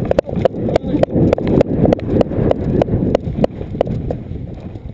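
Airsoft guns firing in a run of sharp clicks, several a second, over wind rumbling on the microphone.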